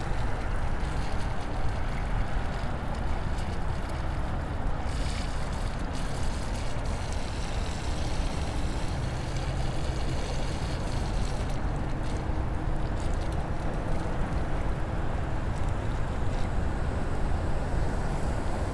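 Steady wind noise buffeting the microphone while riding a KingSong S16 electric unicycle in the rain, a rushing sound heaviest in the low end.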